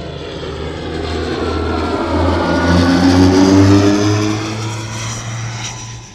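Droning, engine-like sound effect with a steady low hum and slowly rising tones, swelling to a peak about three and a half seconds in and then fading out.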